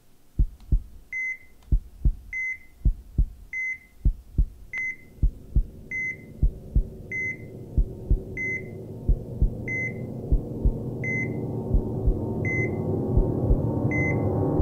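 Heartbeat sound effect: a double thump about every 1.2 s, each followed by a short electronic heart-monitor beep. A low drone grows steadily louder beneath it through the second half.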